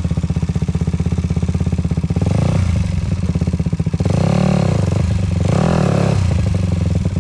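Dirt bike engine running at a low, pulsing idle, then revved in two short throttle blips about four and a half seconds in and a second later, as the bike is worked up a rocky step.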